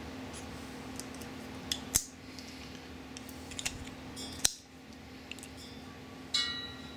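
Pliers and a bent paper-clip wire clicking and scraping against a 3D-printed plastic part as the wire is twisted tight, with two sharper clicks about two and four and a half seconds in and a short squeak near the end. A steady low hum runs underneath.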